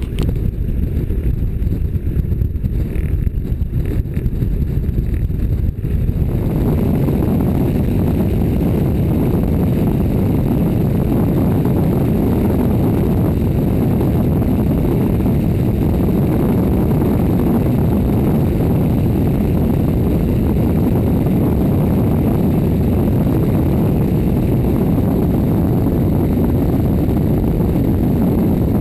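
Loud, steady rush of wind and propeller-engine drone from a small plane in flight, picked up from outside the fuselage underside. The noise thickens about six seconds in and then holds steady.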